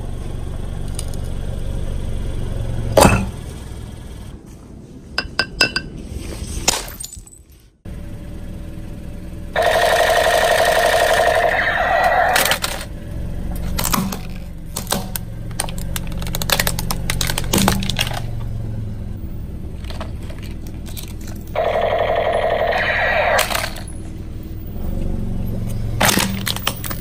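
A car tyre rolls onto a plastic bottle of liquid, with a steady low engine hum, and the bottle bursts with one loud crack about three seconds in. Later the tyre crushes a plastic toy gun with scattered cracks and snaps. Twice, for about two seconds each, loud buzzy electronic tones sound.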